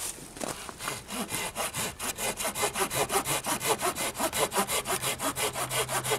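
Hand saw cutting through a branch of firewood in quick back-and-forth strokes, settling into a steady rhythm of about five strokes a second after a hesitant start.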